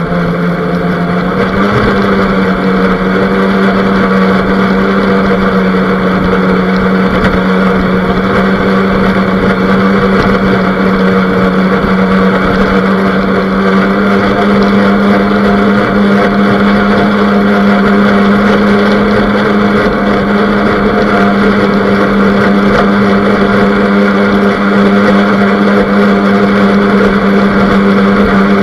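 Radio-controlled boat's motor running steadily under way, heard close up from on board: one strong, even hum that steps up a little in pitch about a second and a half in, over the rush of water along the hull.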